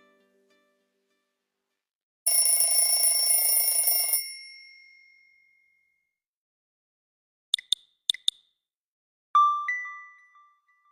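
Nokia 3120 Classic phone alert tones played one after another: a bright, shimmering chime lasting about two seconds, then three short clicks, then a single ding that fades away.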